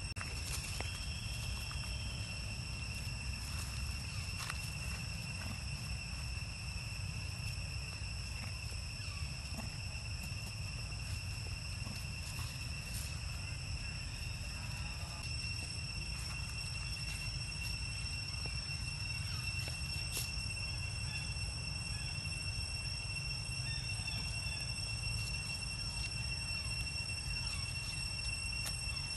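Steady outdoor insect drone, one high-pitched tone that does not vary, over a constant low rumble, with a few faint clicks.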